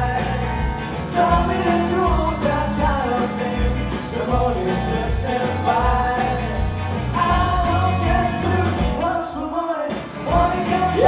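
Live rock band playing loud through the house PA, with electric guitars, bass and drums under a sung lead vocal. About nine seconds in the bass and drums stop for a moment, then the band comes back in.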